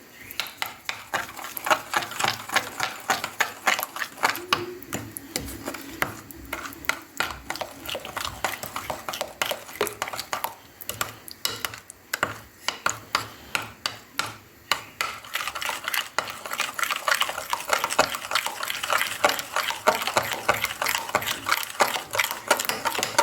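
A whisk beating a thin batter of eggs, oil and milk in a bowl, the wires clicking against the bowl in a rapid, regular rhythm.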